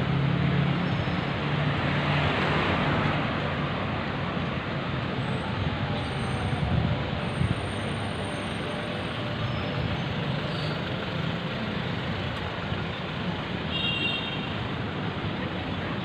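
Street traffic: a steady wash of passing cars and motorcycles with a low engine hum, one vehicle passing close about two seconds in.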